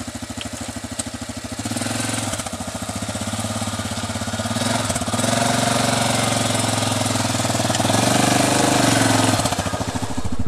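Yamaha ATV engine idling with a rapid, even putter, then rising in revs about two seconds in and running at steady throttle as the quad moves off, easing back near the end.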